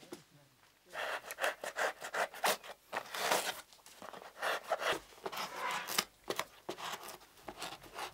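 A curved knife blade scraping and cutting a fibrous sheet by hand in quick, repeated strokes, starting about a second in.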